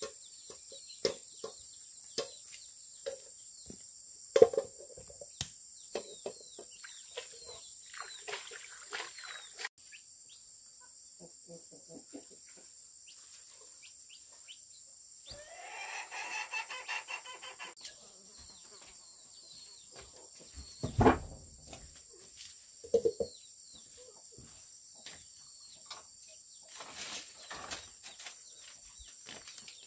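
A chicken calling once for about two seconds near the middle, over a steady high-pitched insect chorus. Scattered knocks and taps run through the first third, and two loud thumps come later.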